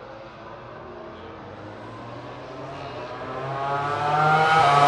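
Racing motorcycle approaching at high revs, its engine note faint at first and growing steadily louder from about three seconds in as it nears.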